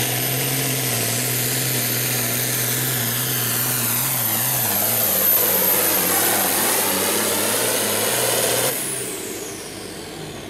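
Farmall 560 hot farm tractor engine running flat out under load as it pulls the weight sled, with a steady high whine over it. About nine seconds in the throttle is cut at the end of the pull, and the whine winds down.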